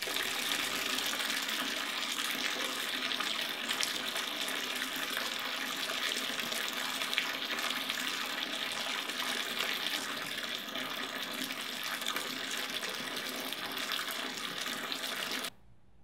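Water running from a bathtub faucet spout and splashing into the tub in a steady stream; it cuts off suddenly near the end.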